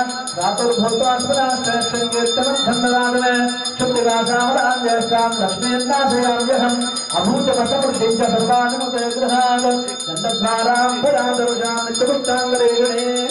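Devotional music with a steady drone and a wavering melody line, over a metal puja bell ringing continuously.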